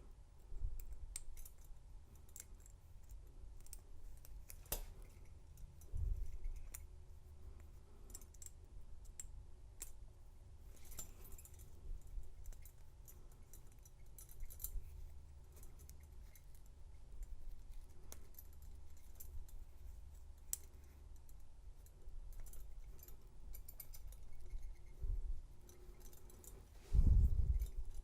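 Scattered small metal clicks and scrapes of a tool working inside the lock of a double-locked handcuff, with a couple of dull bumps, the loudest near the end.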